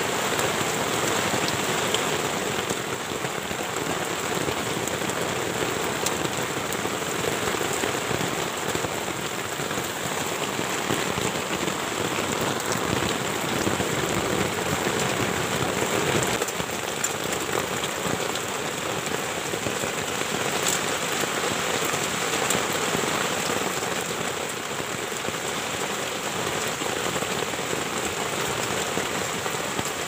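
Heavy rain falling on a tent, heard from inside: a steady, dense hiss full of small drop patters.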